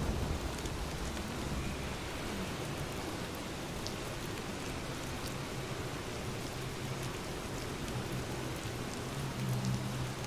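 Steady rain falling, with individual drops ticking on a surface. A low hum rises underneath near the end.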